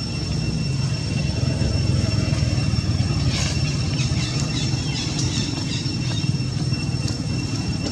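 Steady low rumble with a constant high-pitched whine over it, and a run of short high chirps from about three seconds in to near the end.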